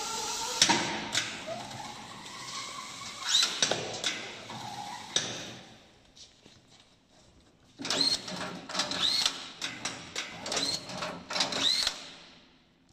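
Easy-Strap automatic strapping machine running strapping cycles: short bursts of motor whirring and sharp mechanical clicks as the strap is fed, tensioned and sealed. The sounds die down about halfway through, then a second run of clicks and whirs follows before it goes quiet near the end.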